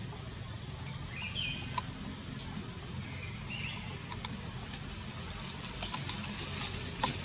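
Tropical forest ambience: a steady high insect whine over a low rumble, with two brief bird chirps about one and three and a half seconds in and scattered faint clicks and rustles in the branches.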